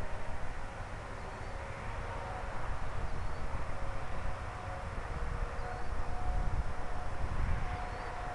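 Faint whine of a small electric RC plane in flight, a Great Planes ElectriFly Rifle with a Neu 1105/2Y brushless motor spinning an APC 4.5x4.1 propeller. Its pitch shifts up and down as it flies at a distance, over a steady low rumble.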